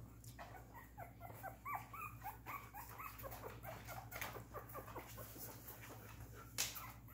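A litter of 2.5-week-old miniature poodle puppies squeaking and whimpering, a rapid string of short high squeals over several seconds. A single sharp click comes near the end.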